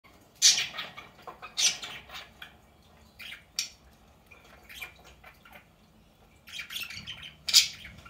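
Budgerigars chirping and squawking in short, scratchy calls, loudest about half a second in, at about a second and a half, and near the end.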